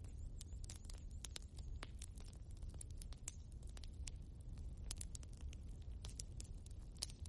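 Logs burning in a fireplace: irregular sharp crackles and pops, several a second, over a steady low rumble of the fire.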